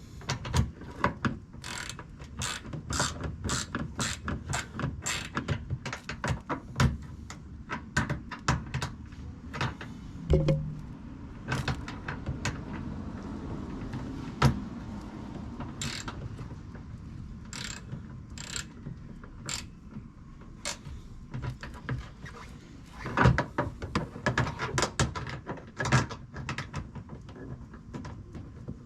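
Ratchet wrench clicking in runs as a bolt is turned, with a few pauses between strokes.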